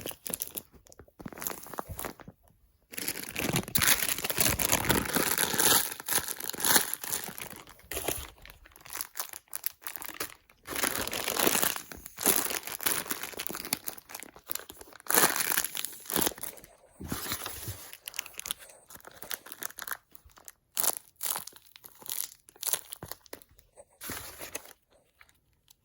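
Homemade squishies made from empty chip bags filled with stuffing and taped shut, crinkling as they are handled and squeezed, in irregular bursts with short pauses.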